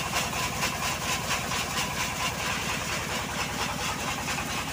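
Single-cylinder diesel engine driving a homemade sawmill, running steadily with a rapid, even beat.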